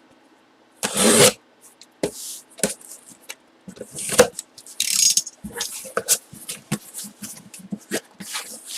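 Cardboard box being opened and its packing handled by hand: a loud scrape about a second in, then a run of short rustles, scrapes and clicks.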